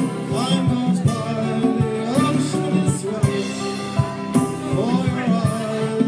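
Live acoustic band playing: acoustic guitar with drum kit and cymbals keeping a steady beat, and a voice singing over them.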